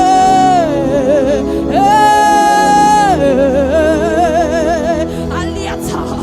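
Slow worship music: a wordless melodic line wavering with vibrato and gliding between notes, with one long held note about two seconds in, over sustained low chords.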